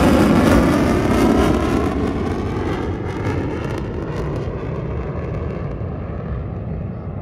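Fighter jets flying past overhead in formation: a loud jet roar that peaks in the first second or so, then fades as the jets pass away into the distance, the high hiss dying out first.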